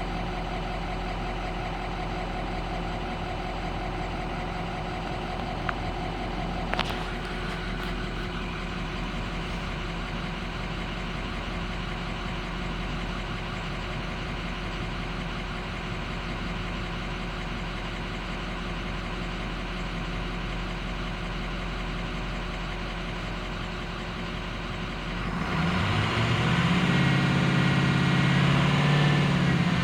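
Ford 6.0-litre Power Stroke V8 turbo-diesel of a 2004 F-250 idling steadily, with a couple of short clicks about six and seven seconds in. Near the end, louder music with distorted guitar comes in over it.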